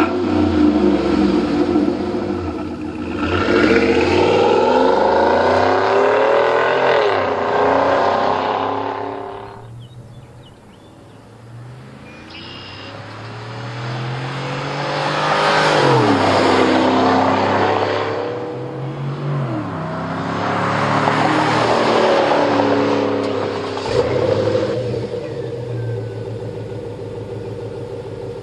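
Cadillac Escalade V8 running through a Corsa performance cat-back exhaust, revved or accelerated hard three times with the pitch climbing and then falling off each time. Near the end it settles to a steady idle.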